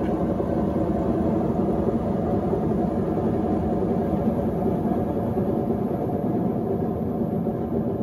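AEG Lavamat top-loading washing machine running a 95 °C wash, a steady churning noise from the drum and motor.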